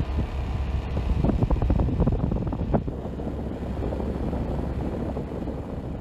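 Wind rumbling on the microphone outdoors: a steady low rumble with a noisy hiss above it. A cluster of crackles comes about one to three seconds in.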